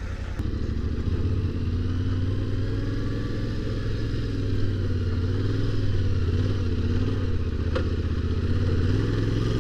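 Adventure motorcycle engine running at a steady, moderate throttle while the bike is ridden through soft, rutted sand. A small click is heard about eight seconds in.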